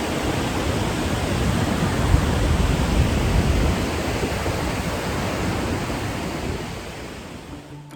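Waterfall water at the Iguaçu Falls rushing steadily, a dense even noise heaviest in the low end, fading away over the last second or so.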